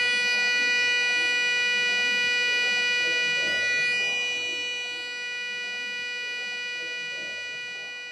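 A single steady electronic tone, held without a break and getting gradually quieter in the second half before fading out.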